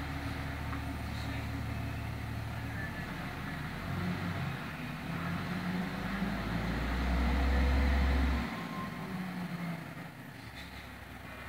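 Garbage truck engine running, then revving as the truck pulls away; the low engine note is loudest about seven seconds in and drops off sharply after about eight and a half seconds.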